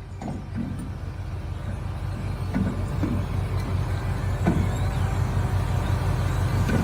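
A vehicle engine running with a steady low drone that grows gradually louder.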